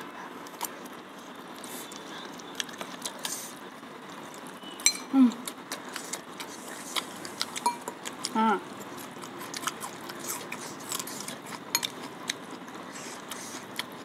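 Close-up mukbang eating sounds: chewing and slurping of spicy noodles, with many small wet mouth clicks and light spoon taps against a glass bowl. Two brief falling vocal sounds come about five and eight and a half seconds in.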